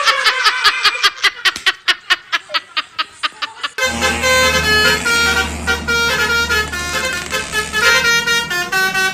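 Quick run of clicks, then a multi-tone 'telolet' bus horn playing a stepping melody of short notes over a low hum.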